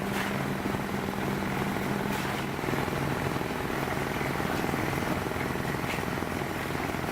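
An engine running steadily, with a few faint clicks.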